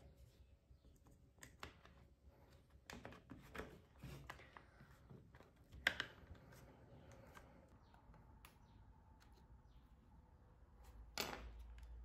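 Faint scattered clicks and knocks of hard plastic being handled as the two halves of a cordless drill's plastic housing are fitted together, with a sharper click about six seconds in and another near the end.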